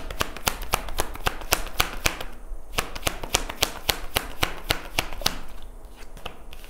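Tarot cards being shuffled and handled: a quick run of sharp card snaps and taps, several a second.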